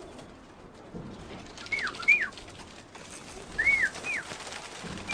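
Birds calling: short high chirps that rise and fall in pitch, two in quick succession about two seconds in, two more about four seconds in, and one more at the end, over a soft rustling background.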